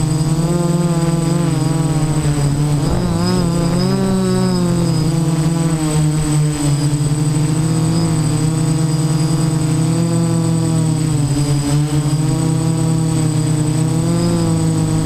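Y6 multirotor's six brushless motors and 10-inch propellers buzzing in flight, heard from the camera on board. The pitch wavers up and down as the motor speeds change, most a few seconds in, with a steady thin high whine over it.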